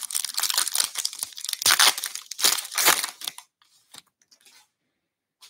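Plastic baseball card pack wrapper being torn open and crinkled: a dense crackling for about three seconds, then a few faint rustles.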